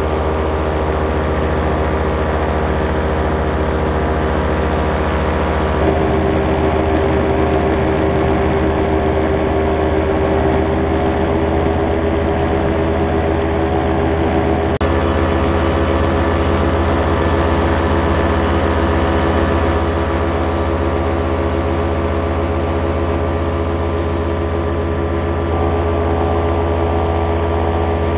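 Paramotor engine and propeller running steadily in flight, heard up close from the pilot's harness. The engine note shifts slightly about six seconds in and again near fifteen seconds.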